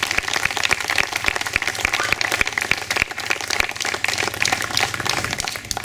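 Small crowd applauding, many hands clapping, dying away near the end.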